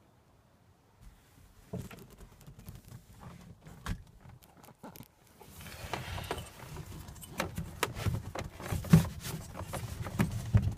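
Irregular clicks, clunks and rustling from the seat of a 1979 Dodge Power Wagon's cab as its release handle is worked to reach the space behind it. The first second is almost silent, and the knocks and rustling grow denser about halfway through.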